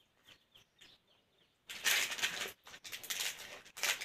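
Plastic snack-packet wrapper crinkling as it is handled. It starts about two seconds in, comes in two rustling spells with crackles between them, and is faintly quiet before that.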